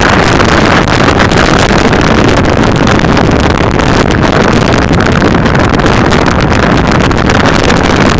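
Steady, loud wind rush on the microphone of a camera mounted on a moving motorcycle, mixed with the bike's running noise on a wet road.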